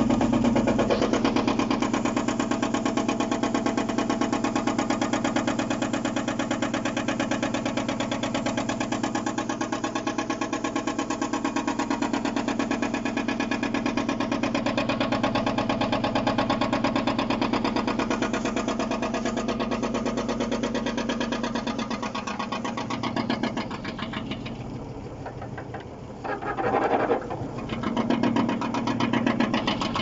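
Vintage front-loading washing machine in an unbalanced spin: the drum and motor run steadily with a fast, even pulsing beat, heard from inside the cabinet. About twenty seconds in the sound drops and turns uneven, with two louder surges near the end.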